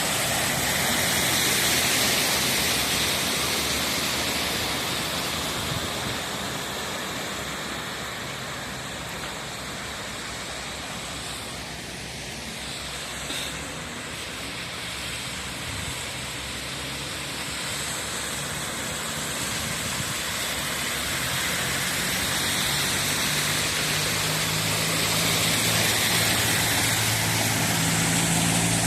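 A car driving along a flooded, storm-soaked road: a steady hiss of water from the tyres and the wet road, under a low engine hum that grows louder in the last several seconds.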